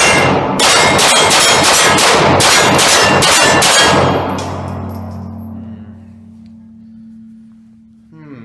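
Rapid fire from a Beretta 92 Brigadier 9mm pistol: about a dozen shots in roughly four seconds. After the last shot the reverberation fades away over a couple of seconds.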